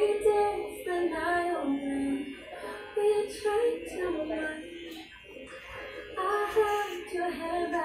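Music with a high singing voice carrying the melody over accompaniment.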